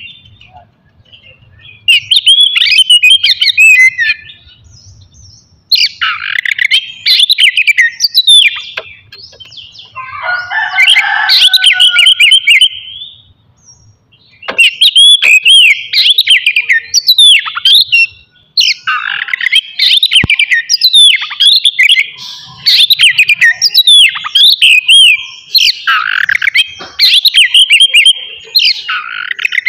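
Oriental magpie-robin (kacer) singing loud, varied phrases of whistles and quick chattering notes. It comes in short bursts separated by pauses at first, then sings almost without a break from about halfway through.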